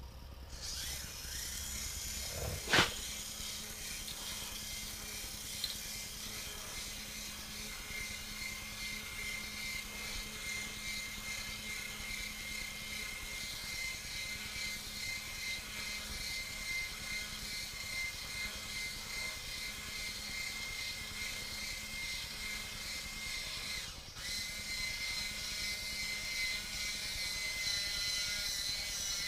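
Small electric motor of an RC lowboy trailer's powered neck lift running steadily with a thin whine as it raises the neck, with one sharp click about three seconds in and a brief break near the end.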